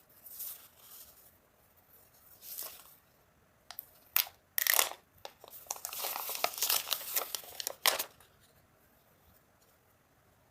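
Packaging from a smartphone box being torn and crinkled: a few short rips, a couple of sharp clicks, then a few seconds of dense crackling before it stops.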